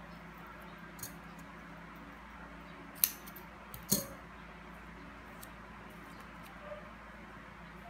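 Light clicks and knocks of a roll of double-sided tape and paper pieces being handled on a table, with two sharp clicks about three and four seconds in, the second as the tape roll is set down. A steady low hum runs underneath.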